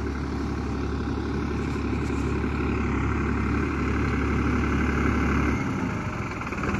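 Tractor engine running steadily close by, with a deep hum that drops away about five and a half seconds in.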